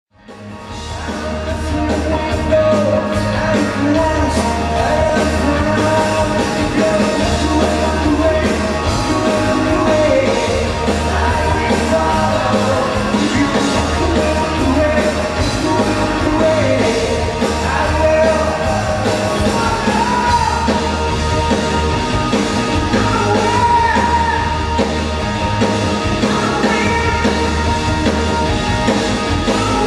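A live rock band playing with a singer, recorded from the audience seats, so the sound comes with the hall's reverberation. The sound fades in over the first second or two, then stays steady, with drums and bass under the vocal line.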